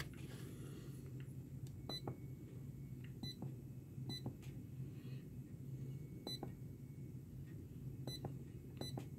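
FNIRSI DSO-TC2 handheld oscilloscope giving a short, high key beep with each press of its buttons, about six beeps at uneven intervals. A faint low hum runs underneath.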